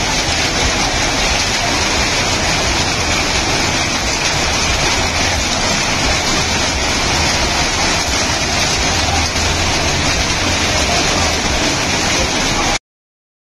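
Heavy hailstorm, with hail and rain pelting a street in a steady, dense hiss that cuts off suddenly near the end.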